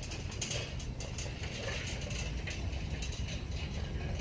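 Wire shopping cart rolling over a concrete floor: a steady low wheel rumble with irregular clattering rattles from the metal basket and its load of potted plants.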